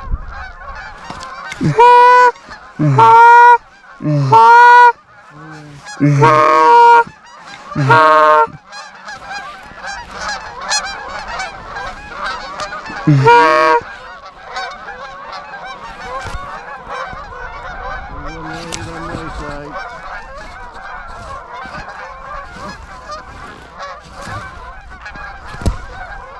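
Loud two-note honks blown on a Canada goose call, six of them in the first fourteen seconds, each breaking sharply up in pitch. They sound over the steady, continuous honking chatter of a flock of Canada geese.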